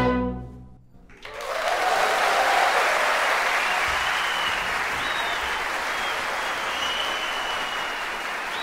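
The last held note of a solo violin with orchestra dies away in the first second. A studio audience then breaks into steady applause with some cheering, which tapers off slightly toward the end.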